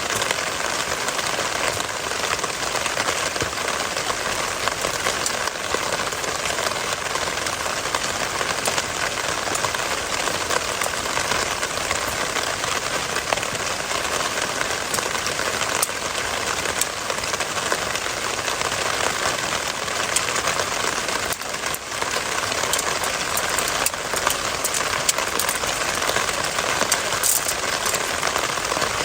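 Steady rain falling, with scattered drops ticking sharply through it.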